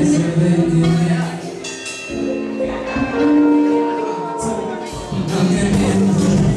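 Background music: held melodic notes over a steady percussive beat.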